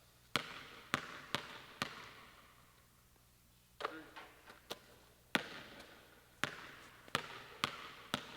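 Basketballs bouncing on a hardwood gym floor, about a dozen irregular thuds with a long echo from the hall.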